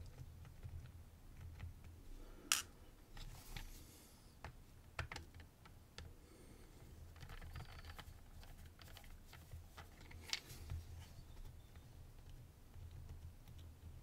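Faint small clicks and scrapes of a precision screwdriver and small metal screws and parts while a Yale Bicentric mortice cylinder lock is being taken apart. A sharper click comes about two and a half seconds in and another around ten seconds.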